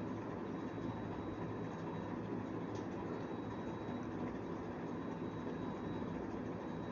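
Steady low hum and hiss of background room noise, with a faint thin high tone; no distinct handling sounds stand out.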